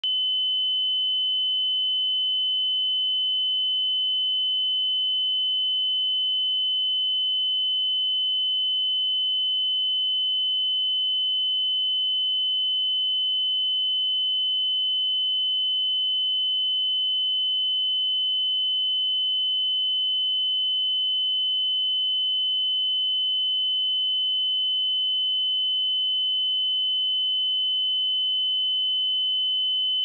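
A pure 3032 Hz sine-wave test tone, high-pitched and held perfectly steady at one constant level.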